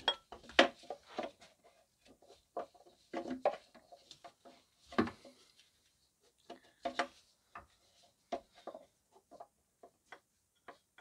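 Scattered light knocks, clicks and scrapes, irregular and with short pauses, as a replacement auxiliary drive-belt tensioner is worked by hand onto its mounting and locating peg.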